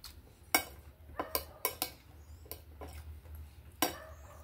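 Metal fork and knife clinking and scraping on a plate while cutting a breaded cutlet: a handful of short sharp clicks, the loudest about half a second in and near the end, over a faint low steady hum.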